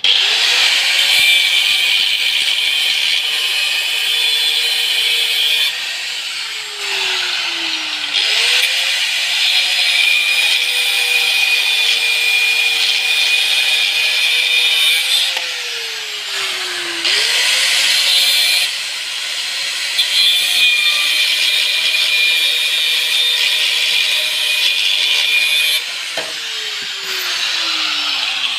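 Electric angle grinder cutting into metal, throwing sparks, a steady motor whine under a high scraping screech. The motor is switched off and winds down about a quarter of the way in and just past halfway, spinning back up each time, then winds down again near the end.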